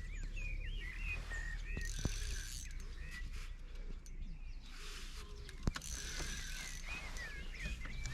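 Songbirds singing short, warbling whistled phrases in bursts, with a few light clicks, one sharper about two-thirds of the way through.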